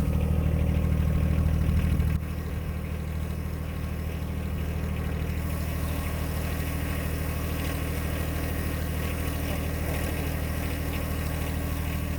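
John Deere 1025R compact tractor's three-cylinder diesel running at a steady idle, its hum dropping suddenly in level about two seconds in and then holding steady.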